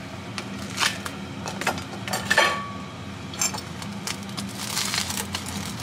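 Chef's knife cutting crisp fried pempek fish cakes on a wooden cutting board, with a fork holding them: a series of short crunches and knocks of the blade on the wood, with light clinks of metal, over a steady low hum.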